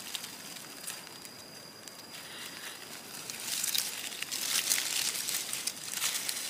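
Dry leaf litter and twigs crackling and rustling, with many small snaps, quieter at first and busier from about three seconds in.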